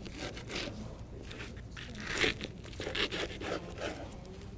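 Chef's knife crunching through a crisp, toasted flour-tortilla quesadilla on a cutting board: a few irregular crunches, the loudest about two and three seconds in.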